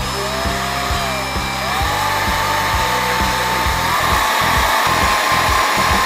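Cordless drill running without load, its motor whine dipping and then rising in pitch about a second and a half in, and stepping up again about four seconds in.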